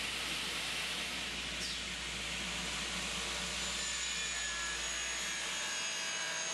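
Tekna TK133 automatic miter saw running, a steady hiss of machine noise. A faint high whine comes in over it in the second half.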